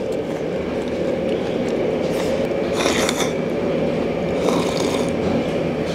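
Eating sounds: chewing, then slurps of soup drunk from a bowl, the loudest about three seconds in. They sit over a steady droning hum.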